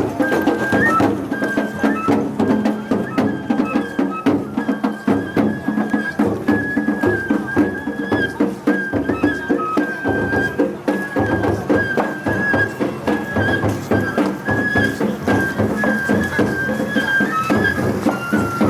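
Japanese festival o-hayashi music: a high bamboo flute plays a held, wavering melody over rapid, continuous drum beats.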